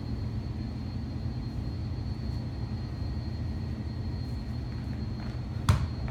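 Steady low room rumble with a faint, thin high-pitched whine, no clear source, then a single thud near the end as the soccer ball comes off his back.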